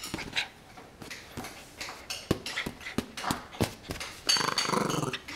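American Eskimo puppy tussling with a rope tug toy on a leather couch: irregular scrapes, taps and rustles of rope, paws and leather, with a short low growl about four and a half seconds in, the loudest part.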